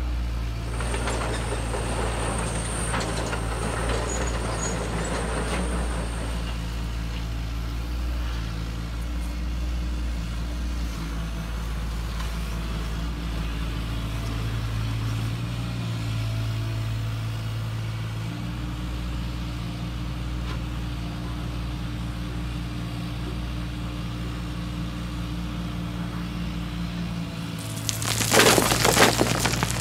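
HUINA 580 RC excavator's electric motors humming steadily, the pitch shifting a little as the arm works. In the first few seconds the bucket scrapes through gravel. Near the end, gravel pours from the bucket into a toy dump truck's bed, rattling for about a second and a half: the loudest sound.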